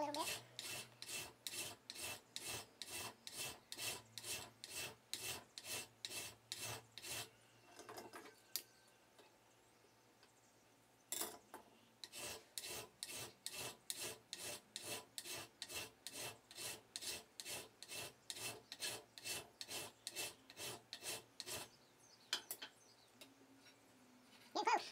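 Flat hand file rasping back and forth across a hacksaw-cut piece of metal angle held in a bench vise, shaping the rough saw-cut edge. The strokes are quick and even, about three a second. They break off for a few seconds twice, once near the middle and once near the end.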